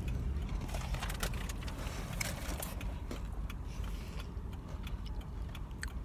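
Steady low rumble inside a vehicle's cabin, with scattered light clicks and rustles from a phone being moved around in the hand.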